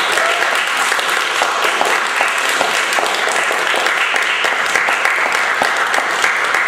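Audience applauding: many people clapping at once in a dense, steady round of applause that holds at an even level and begins to fade near the end.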